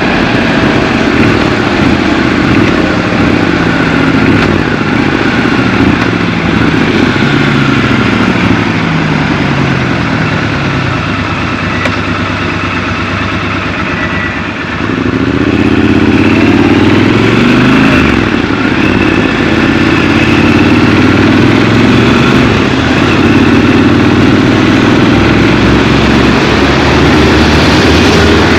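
Triumph Scrambler 1200 XC's parallel-twin engine heard from the rider's seat. The engine note falls as the bike slows and runs quieter around the middle. About halfway through it opens up, rising in pitch as the bike pulls away, then runs on at a steady cruise.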